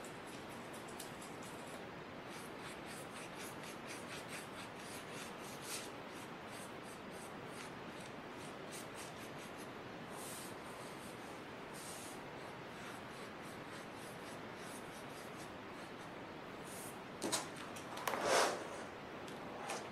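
Faint light scratching and rubbing ticks over a steady hiss. Near the end, a louder scrape and rustle as the painted watercolour paper, taped to its board, is lifted and handled.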